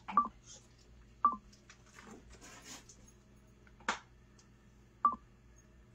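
Three short electronic beeps, spaced irregularly, as buttons are pressed on a kitchen appliance's keypad, with a single sharp click about four seconds in.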